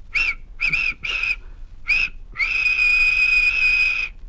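Steam locomotive whistle: four short peeps, then one long steady blast.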